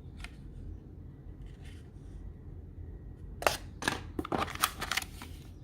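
Packaging and accessories being handled: a quick run of crinkling and clicking about three and a half seconds in, over a low steady hum.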